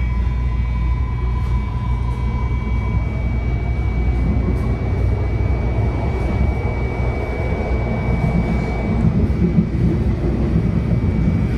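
MARTA rapid-transit railcar heard from inside while the train runs along the track: a steady low rumble with wheel-on-rail noise and a thin, steady high whine that fades out about three quarters of the way through.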